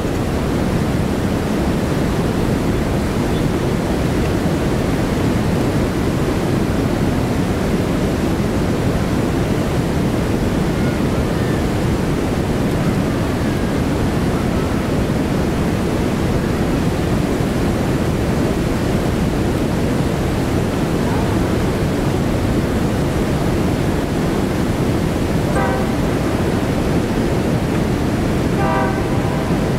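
Steady rush of whitewater from the Big Sioux River falls and rapids, unchanging throughout. A few faint short chirps sound near the end.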